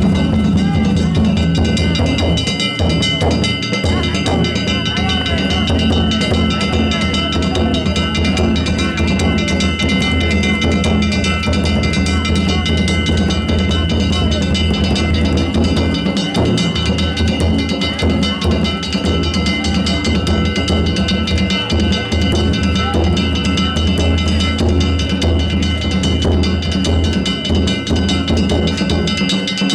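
Danjiri float music: a taiko drum beaten without pause, with metal hand gongs (kane) ringing over it.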